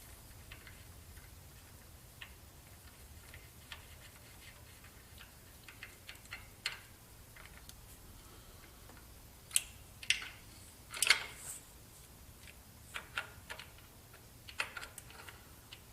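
Scattered light clicks and metal clinks from hand tools and small metal parts handled at an engine's timing chain, over a faint low hum. A few louder clinks come about ten to eleven seconds in, and several more near the end.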